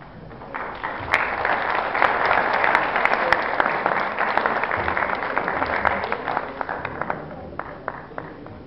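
Audience applauding. The clapping builds up about half a second in, holds strongest through the middle and dies away over the last couple of seconds.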